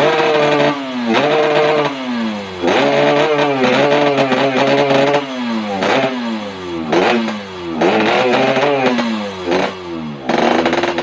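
Yamaha RX-King's 135 cc two-stroke single-cylinder engine free-revved at standstill, throttle blipped over and over with each rev falling back toward idle. One rev is held for a couple of seconds from about three seconds in, and another near the end.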